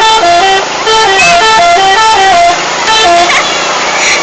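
Loud Indonesian 'telolet' musical bus horn playing a quick tune of stepped two-note chords. It pauses briefly about two and a half seconds in, then sounds a few more notes.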